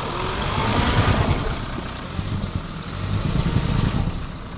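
Toyota Land Cruiser 100's 4.2-litre diesel engine running under light load as the SUV creeps forward, stuck in deep snow. The engine note swells about a second in and again a little past three seconds.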